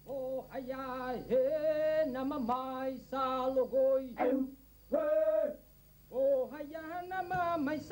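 A voice chanting in held, sung notes, phrase after phrase with short pauses between them.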